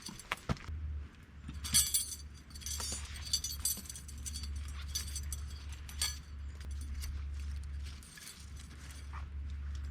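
Light metallic clinking and jangling, with scattered clicks, over a steady low rumble.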